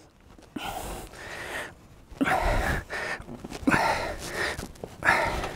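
Repeated strained breaths, four in all, about a second and a half apart, as a sheet-metal mudguard panel is pressed down over a shaping sandbag with the knees to close its curve.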